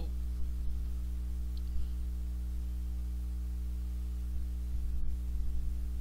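Steady electrical mains hum, a low buzz made of several steady tones, with a few faint low bumps about five seconds in.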